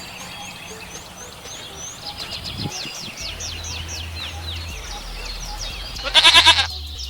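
Small birds chirping in quick series of short falling notes. About six seconds in, a goat gives one short, loud bleat.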